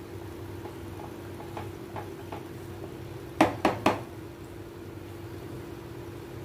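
Steel kitchenware knocking three times in quick succession, over a steady low hum.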